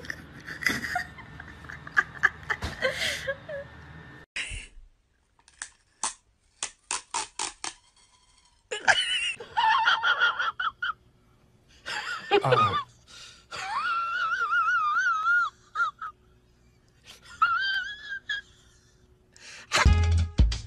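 Cats meowing and yowling in wavering, high-pitched cries, after a run of sharp clicks. Drum-led music comes in near the end.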